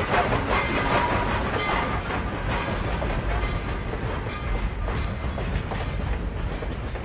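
Steam train running along the rails, its wheels clicking rhythmically over the rail joints under a steady rushing noise.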